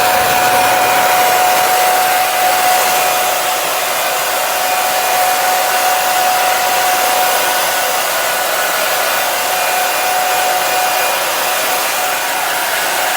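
Hand-held hair dryer running steadily: an even rush of blown air with one constant tone through it.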